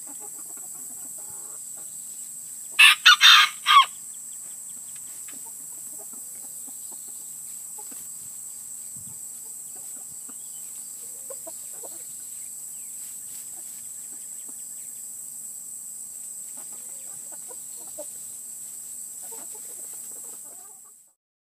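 A rooster crows once, about three seconds in: a loud call in four quick syllables. Afterwards hens cluck softly and sparsely, over a steady high-pitched hiss.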